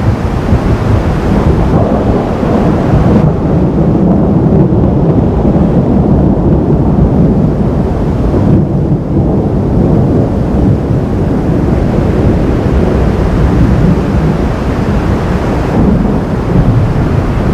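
Thunder rolling in a long, continuous low rumble, loud and fairly even throughout.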